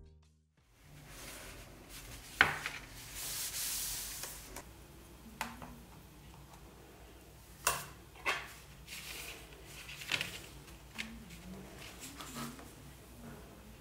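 Hands handling an open paper sketchbook: soft paper rustling as the pages are smoothed flat, with a few sharp clicks and taps from a metal binder clip being taken off the page edge and handled. The loudest click comes about two and a half seconds in.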